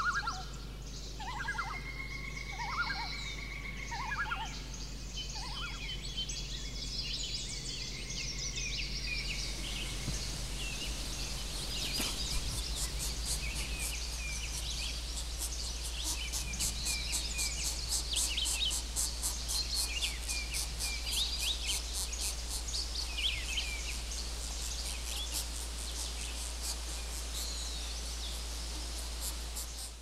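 A chorus of wild birds singing: many short high chirps and trills, with a few lower repeated calls in the first seconds. From about ten seconds in, a fast, even series of sharp high rasping notes runs under the song to the end.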